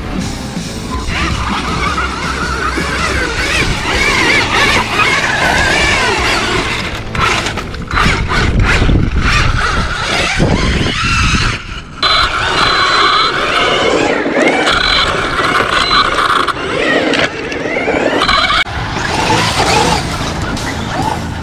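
Electric RC trucks driving on dirt: the motor whine rises and falls with the throttle over tyre scrabbling and skidding, with a cluster of knocks about seven to nine seconds in.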